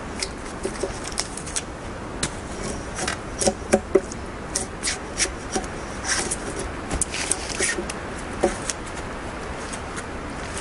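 A log being worked with a bladed hand tool: irregular scraping strokes and a few sharper knocks as bark and branch stubs are cut away from the wood.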